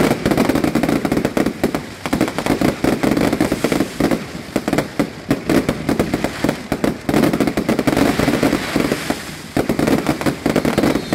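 Fireworks display: aerial shells bursting in a dense, rapid barrage of overlapping bangs and crackling, with a brief lull near the end.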